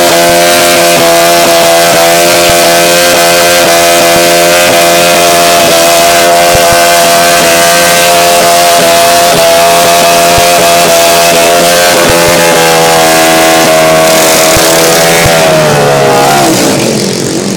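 An engine held at high revs, very loud and steady, then the revs fall away near the end.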